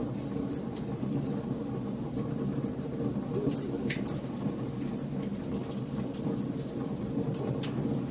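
Wood fire burning in a fireplace: a steady low rush of flames with frequent sharp crackles and pops.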